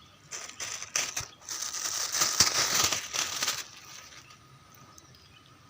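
Close rustling and crinkling for about three seconds, with a few sharp clicks, then it dies away.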